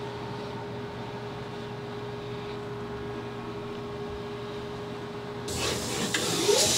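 Datron CNC mill running a tool change: a steady machine hum with a faint constant tone, then about five and a half seconds in a loud hiss of compressed air starts as air blasts through the spindle and nozzles to clean the tool as it is picked up.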